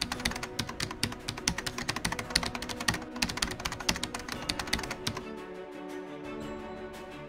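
Computer-keyboard typing sound effect: a rapid, dense run of key clicks that stops about five seconds in, over background music with sustained tones.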